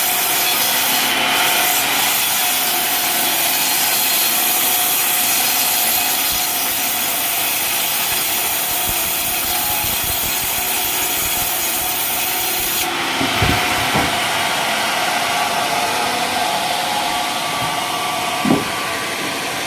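Sawmill saw cutting through coconut palm timber. About thirteen seconds in the cut ends and the machine keeps running, with a few short wooden knocks.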